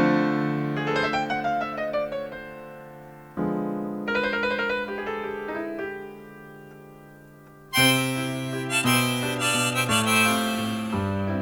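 Music: a solo piano plays two descending runs, each dying away. About eight seconds in, harmonica and a fuller accompaniment come in louder.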